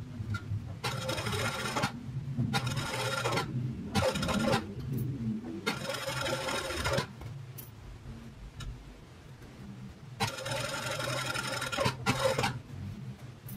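Juki industrial lockstitch sewing machine stitching a curved seam in five short runs, stopping between them while the fabric is turned; the longest run is near the end.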